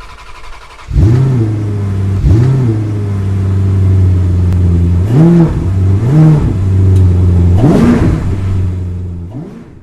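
Car engine revving in five short blips over a steady idle, the pitch rising and falling with each blip. The last blip is the highest, and the sound then fades away near the end.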